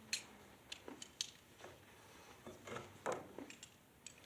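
Faint, scattered light clicks and taps of small metal hardware being handled, with a few duller knocks in the second half.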